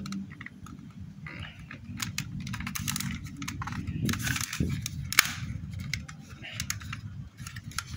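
Irregular clicks and light rattles of a Beretta-replica airsoft pistol being handled as its slide is fitted back onto the frame, over a steady low hum.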